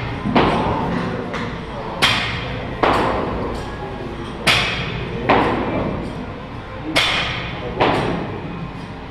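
Heavy thumps in pairs, one pair about every two and a half seconds, echoing in a large gym hall.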